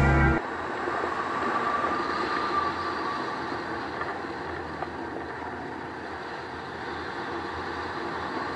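Background guitar music cuts off just after the start, then steady wind rushing over the microphone of a camera mounted on a hang glider in flight.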